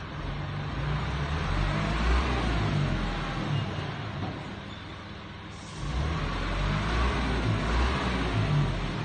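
Dump truck's engine running at raised revs while the tipper bed is up and a load of soil slides off it. The engine eases off for about a second just past the middle, then revs up again.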